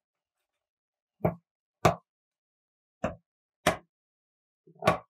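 Short squishy plops as a filled rubber balloon is squeezed by hand: five of them, in pairs about half a second apart.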